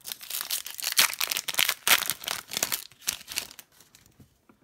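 Foil wrapper of a 2003-04 Pacific Hockey card pack crinkling as it is handled and torn open, a dense crackling that dies down about three and a half seconds in.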